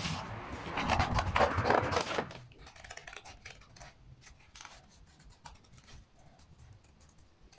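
A stiff paper sheet rustles loudly as it is handled for about two seconds. Then come quieter, scattered snips of scissors cutting out the paper pattern.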